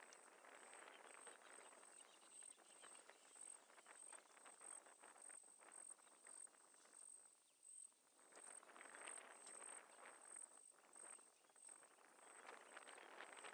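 Faint outdoor ambience: an insect chirping in high, evenly spaced pulses, about two or three a second, over a soft hiss with small scattered crackles.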